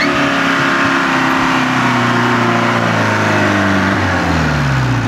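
Modified jeep's engine pulling hard up a steep dirt climb, its note falling steadily as the revs drop under load.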